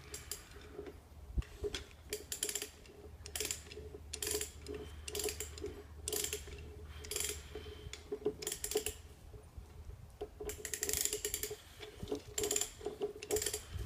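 Hand-operated come-along (ratchet cable puller) being cranked: its ratchet pawl clicks in repeated runs of strokes as the cable is drawn tight against a sawed-through deck post.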